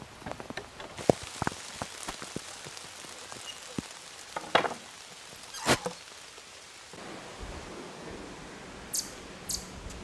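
Light rain in woodland: a steady hiss with scattered, irregular drips and ticks, a few of them louder, around a second in and in the middle, plus two short high-pitched sounds near the end.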